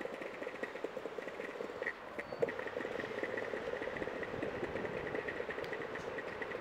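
Longboard's urethane wheels rolling over pavement: a steady gritty rumble with fast light ticking, and one sharper knock about two and a half seconds in.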